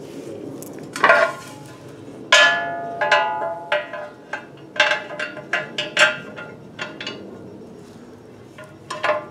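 Steel skid plate clanging and ringing as it is handled and knocked against the motorcycle, about a dozen irregular metal strikes, the loudest about a second in and just after two seconds.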